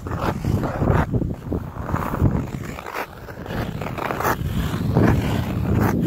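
Ice skate blades scraping and gliding over the ice of a frozen pond, in irregular strokes.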